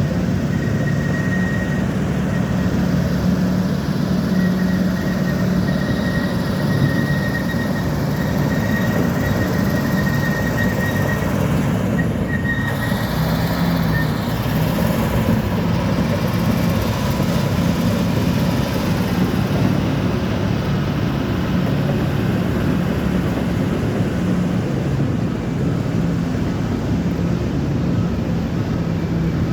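Bulldozer's diesel engine running steadily under a continuous drone, with a thin high whine over it that fades out about halfway through.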